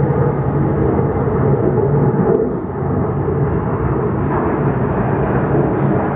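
Loud, steady drone of heavy engines with a humming tone, dipping briefly a couple of seconds in.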